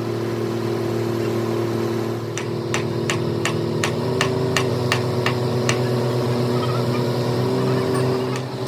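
An engine running steadily with a low hum that shifts slightly in pitch partway through. Over it, from about two seconds in, comes a run of sharp taps or knocks, about three a second.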